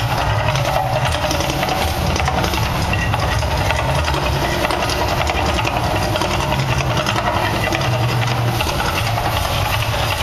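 The Mirage hotel's man-made volcano show erupting: a steady, loud, deep rumble with a hiss of gas flames over it.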